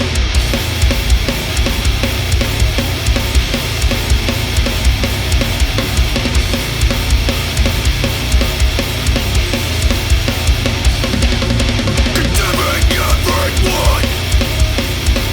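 Heavy, aggressive rock music with no vocals: distorted guitar and bass over pounding drums with a steady, driving kick-drum beat.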